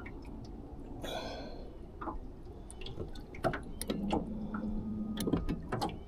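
Scattered small clicks and knocks of rod and reel handling in an aluminum jon boat, over soft water sounds around the hull, with a faint low hum for a second or so past the middle.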